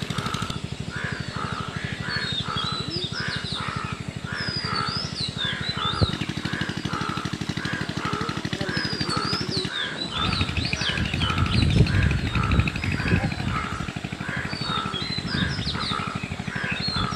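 Crows cawing over and over, about twice a second, with higher chirps from other birds. A louder low noise joins in from about the middle for a few seconds.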